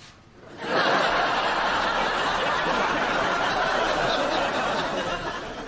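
Studio audience laughing, breaking out suddenly just under a second in, holding steady and beginning to die away near the end.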